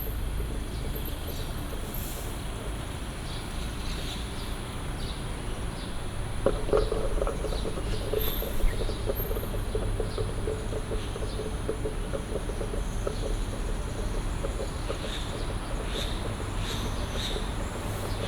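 Soundscape composition made from urban field recordings: a steady low rumble and a steady high insect-like drone, with scattered short bird-like chirps. About a third of the way in, a buzzing, pulsing sound starts suddenly and fades out over several seconds.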